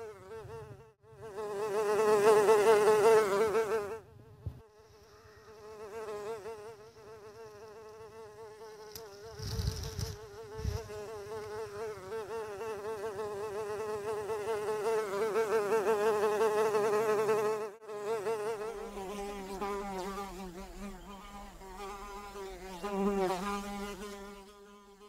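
Honey bee wings buzzing in flight, a steady hum with a slightly wavering pitch that swells and fades as the bee moves nearer and farther, loudest in the first few seconds and again past the middle. A brief low rumble sounds about ten seconds in.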